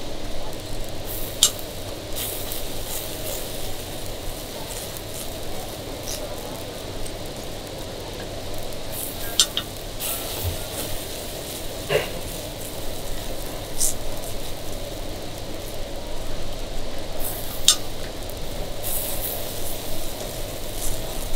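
Khanom buang batter being spread in thin rounds on a hot flat metal griddle with a small metal spatula: steady scraping and a light sizzle, with a few sharp metal clinks.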